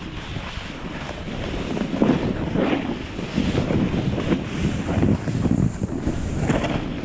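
Wind buffeting the microphone, with skis scraping and hissing through chopped-up, tracked snow in uneven surges as the skier turns down a steep slope.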